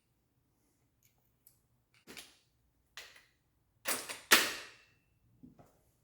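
Workshop clatter of tools and bike parts being handled: a series of sharp knocks and clacks about a second apart, the loudest a little past four seconds with a brief ringing after it.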